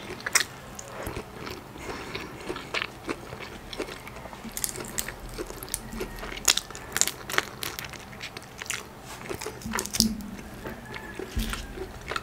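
Close-up eating sounds: wet chewing and mouth smacks, with many sharp crackles and clicks as cooked shrimp shells are pulled off by hand.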